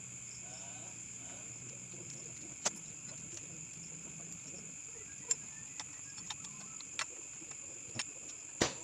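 Scattered light metal clicks and taps of hand tools and motorcycle engine parts being handled during assembly: five or six sharp clicks, the loudest near the end. Crickets chirr steadily underneath.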